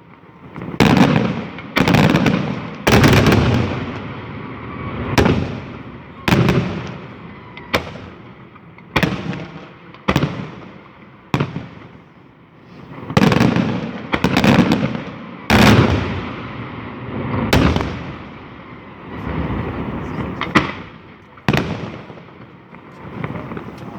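Aerial fireworks shells bursting in a steady series of loud bangs, roughly one every second or so, each followed by a rumbling echo that fades before the next.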